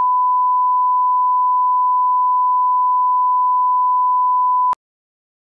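1 kHz reference test tone played with SMPTE colour bars: one steady pure beep that cuts off suddenly with a click near the end.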